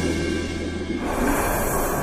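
Dark, suspenseful documentary background music with held tones. About a second in, the low drone drops away and a hissing swell comes in.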